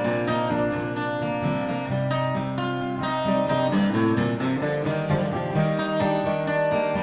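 Acoustic guitar strummed in an instrumental passage of a live acoustic song, steady chords with no singing.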